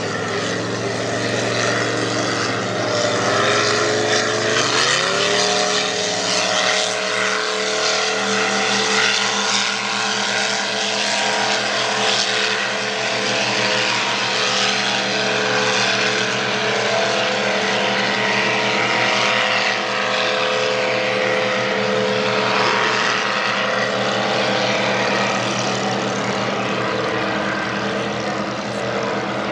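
Two racing powerboats' high-horsepower engines at full throttle, rising in pitch about five seconds in as the boats accelerate, then running at a steady pitch as they race side by side.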